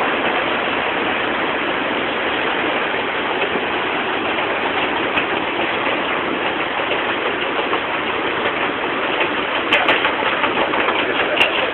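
Heavy monsoon rain pouring down, a dense steady hiss, with a few sharp clicks near the end.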